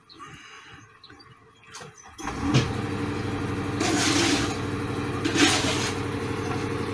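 A motor vehicle engine comes in suddenly about two seconds in and keeps running steadily, with two brief louder surges.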